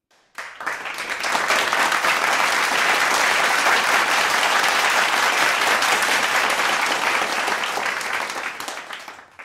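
Theatre audience applauding the actors' curtain call: dense clapping that starts about half a second in, holds steady, thins near the end and stops abruptly.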